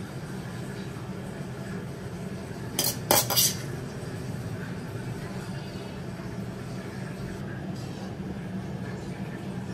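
A metal ladle clinking and scraping against a black steel wok while scooping out stir-fried minced pork, with a quick cluster of three or four sharp clinks about three seconds in. A steady low hum runs underneath.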